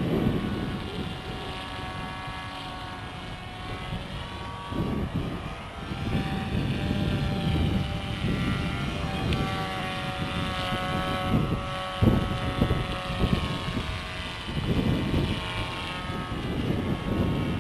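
Electric motor and propeller of a small foam RC airplane whining in flight, the pitch rising and falling as it works the throttle and passes overhead. Gusts of wind rumble on the microphone underneath.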